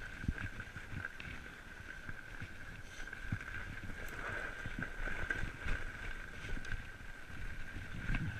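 Fat bike rolling over a packed snow trail: tyre and ride noise with frequent low thumps and knocks from bumps, wind on the microphone, and a steady high tone in the background.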